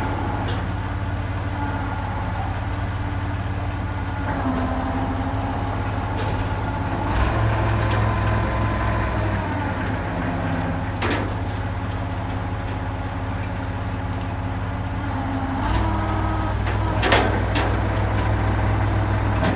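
Truck crane's engine running steadily, growing louder for two stretches, with a few sharp metallic clanks, the loudest near the end.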